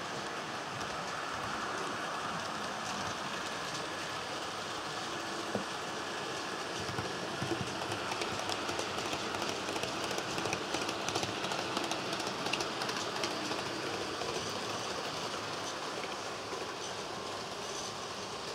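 Model train running along the track: a steady rolling hiss of wheels on rail with many quick, irregular clicks, a little louder in the middle.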